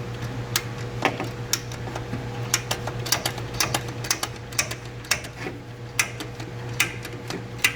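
Black ABS drain pipe being cut by hand with a tool that clicks sharply and regularly, about twice a second. A steady low hum runs underneath.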